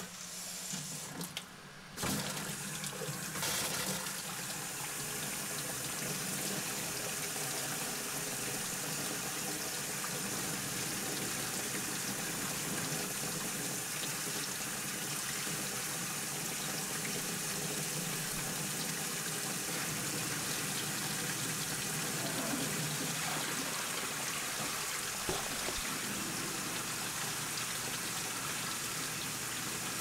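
Water running from a faucet into a plastic utility sink basin, a steady splashing stream. The tap is turned on near the start and is running at full flow from about two seconds in.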